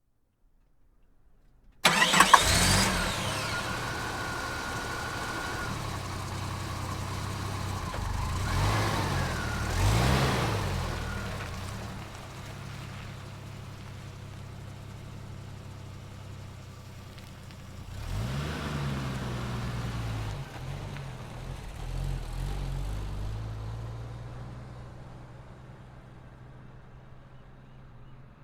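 An SUV's engine starts about two seconds in and runs with a brief steady high tone just after it catches. It then revs up several times and fades away as the vehicle drives off.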